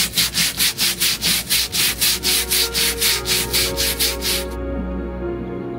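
Stiff-bristled hand brush scrubbing wet, mossy teak deck boards in quick back-and-forth strokes, about five a second. The scrubbing cuts off suddenly about four and a half seconds in, leaving soft ambient music.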